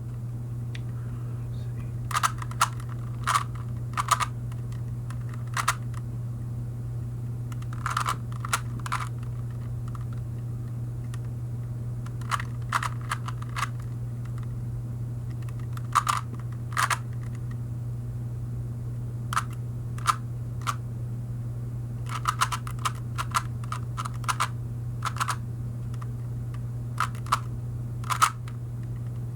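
3x3 Rubik's cube being turned by hand during a solve: bursts of quick plastic clicks from the layer turns, separated by short pauses. A steady low hum runs underneath.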